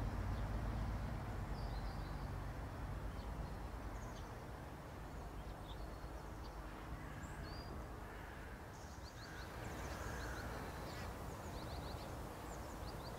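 Birds chirping with many short, high calls, more of them in the second half, over a steady low background rumble.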